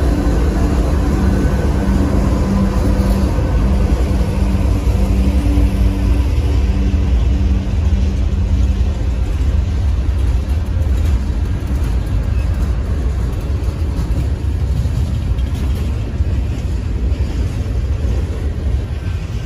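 Union Pacific freight train rolling past close by. A diesel locomotive's steady engine hum rides over a deep rumble for the first several seconds, then fades. The freight cars follow with a steady rumble of wheels on rail.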